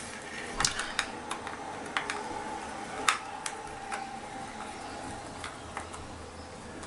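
Small screwdriver turning a tiny screw out of a plastic headphone earcup, giving irregular light clicks and ticks.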